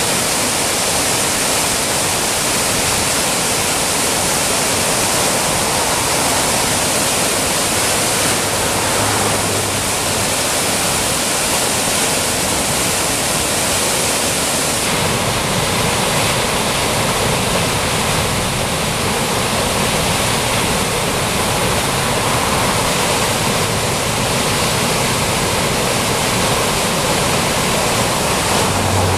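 Flood-swollen, muddy river water pouring over a weir into churning whitewater: a loud, steady rush.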